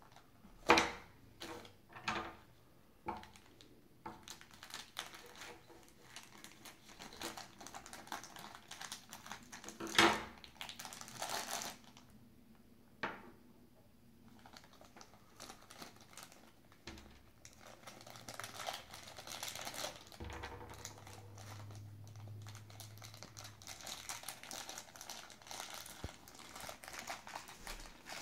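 Clear plastic bag crinkling as a small toy figure is unwrapped by hand, with a few sharp knocks of small plastic pieces set down on a wooden table, the loudest about a second in and about ten seconds in.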